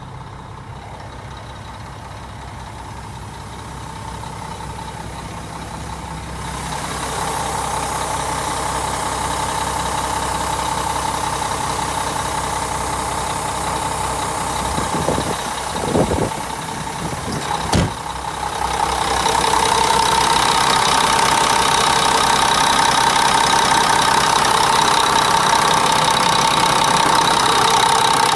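A Mack CH613 tractor's diesel engine idling steadily, muffled at first and then louder and clearer, with a steady whine running over it. Two brief thumps come about two seconds apart midway through.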